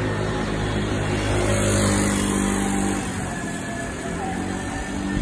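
A motor vehicle engine running close by with a steady low hum over street noise, easing off after about three seconds.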